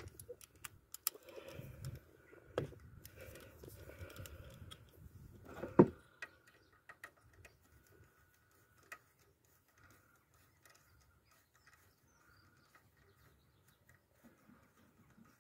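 Light clicks and taps from hands handling metal and plastic engine parts, with one sharper click about six seconds in, then only a few faint ticks.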